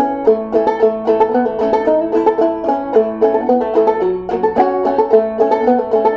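10-inch H.C. Dobson antique banjo with a double spun-over metal pot, played as a continuous tune of quick, bright plucked notes.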